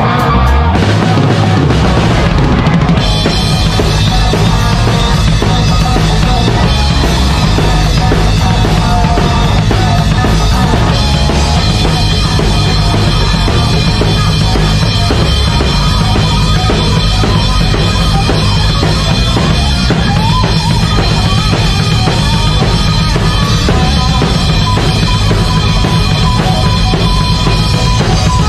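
Live heavy metal band playing, heard from beside the drum kit so the drums are loudest: pounding kick drum, snare hits and Sabian cymbals over distorted electric guitar. The cymbals fill in about three seconds in.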